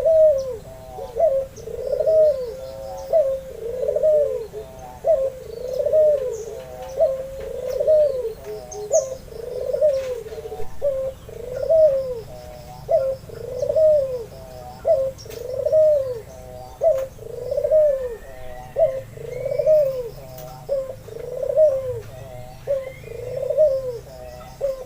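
White albino puter (Barbary dove) cooing steadily, a rolling coo repeated about once a second. Faint chirps of small birds are heard in the background.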